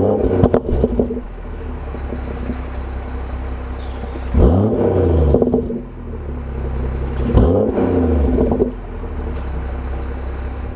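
BMW M140i's turbocharged straight-six idling through an M Performance exhaust. It is blipped three times: once at the start, once about four seconds in and once about seven seconds in. Each time the revs rise sharply and drop back to idle.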